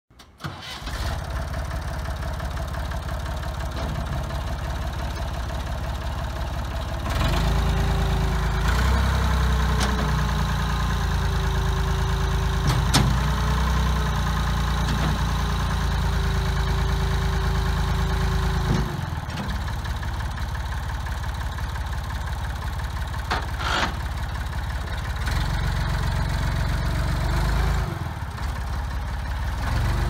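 Massey Ferguson 30B tractor-loader-backhoe engine running, its speed raised from about 7 to 19 seconds with a steady whine from the loader hydraulics as the front loader is worked, and raised again briefly near the end. A few clunks are heard over the engine.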